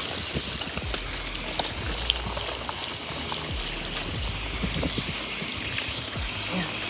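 Garden hose spray nozzle running a steady stream of water into small metal plant pots, with water splashing and spilling over.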